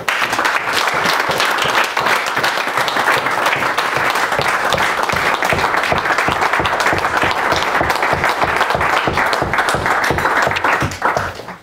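A roomful of people applauding, a dense, even clapping that dies away near the end.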